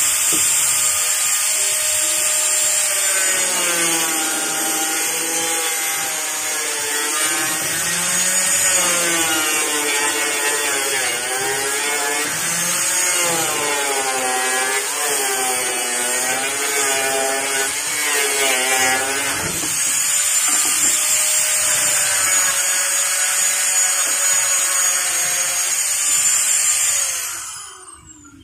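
Electric angle grinder running at high speed against the edge of a plywood panel, a high whine whose pitch wavers up and down as the disc is worked along the wood. It is switched off near the end and winds down.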